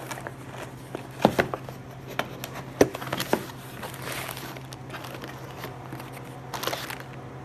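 Bubble wrap and plastic packaging crinkling as a parts package is unwrapped, with scattered sharp crackles over a steady low hum.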